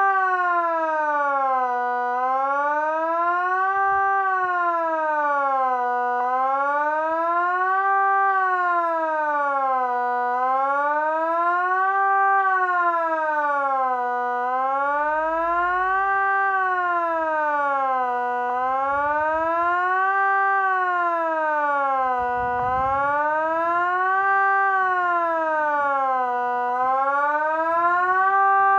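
Kockum Sonics ET 30/3 electronic civil-defence siren sounding the Swiss 'general alarm' signal in the annual siren test: a loud tone that rises and falls in pitch steadily, about every four seconds.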